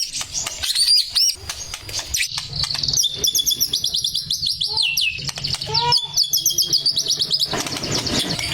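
Male white-rumped shama singing: varied whistled phrases and trills, with a fast run of rapidly repeated notes in the middle.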